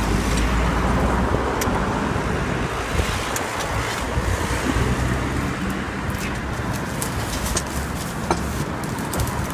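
Street traffic noise: cars passing along a city street, a steady low rumble, with scattered light clicks in the second half.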